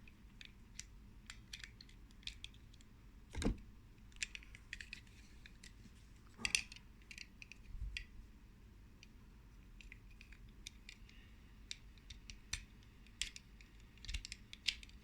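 Small plastic clicks and taps as the parts of a vintage toy claw weapon are handled and worked, with one louder knock about three and a half seconds in.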